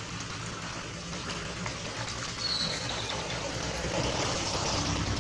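Steady rain falling, getting a little louder near the end.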